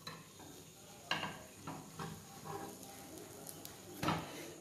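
A plate set over a frying pan, clinking against the pan's rim about a second in, followed by a few lighter clinks and a louder knock near the end as the plate and pan are handled for flipping an omelette.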